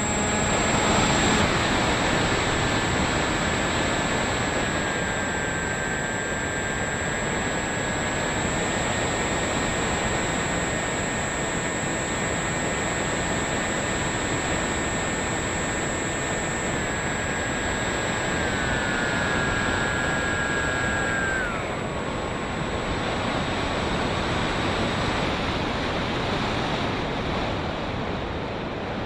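Brushless electric motor and 6x4.5 propeller of a Bixler RC foam plane whining in flight over a heavy rush of wind noise. The whine steps up in pitch about eight seconds in, eases down later, then drops sharply about three quarters of the way through as the throttle comes back, leaving mostly wind.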